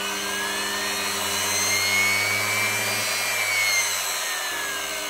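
Vacuum cleaner motor running on an SCR speed controller, with a rushing-air hiss. Its whine rises in pitch to a peak about two seconds in, then falls back as the speed knob is turned up and then down again.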